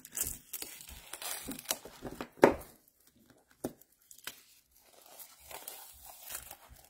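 Plastic shrink-wrap being torn open and peeled off a pack of paper, crinkling and crackling, with one sharp, loud crackle about two and a half seconds in and a quieter stretch afterwards.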